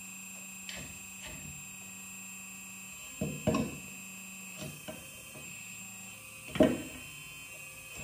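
Hydraulic pump of an RC Kabolite 970 excavator running with a steady electric hum while the arm works the bucket onto the quick coupler, with a few short knocks, the loudest a sharp one near the end.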